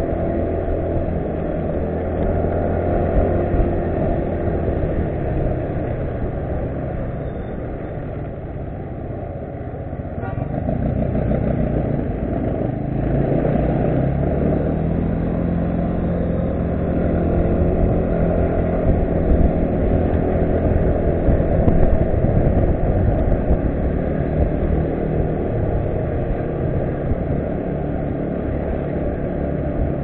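Yamaha Cygnus RS 125 scooter's single-cylinder four-stroke engine running under way, heard from on board the scooter. The engine eases off about eight seconds in, then picks up again with a rising pitch as it accelerates.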